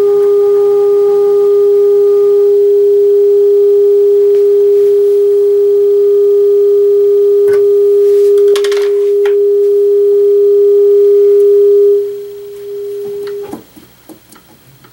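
A steady pure test tone with faint overtones, coming through the Magnavox console stereo's tuner and speaker during tuner alignment. There is a brief crackle about eight and a half seconds in. The tone drops in level about twelve seconds in and cuts off shortly after, leaving a few faint clicks.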